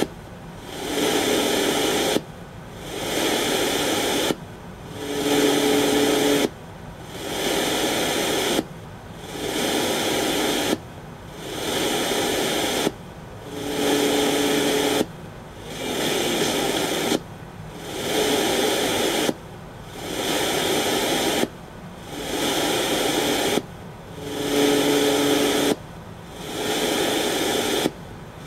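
Home-built RDA5807M FM receiver giving out a steady radio static hiss between stations. The hiss cuts out about every two seconds and fades back in as the receiver retunes, with faint tones under it in a few of the steps.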